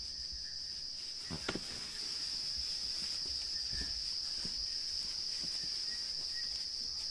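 Steady high-pitched chorus of night insects, with a single short, louder sound about one and a half seconds in.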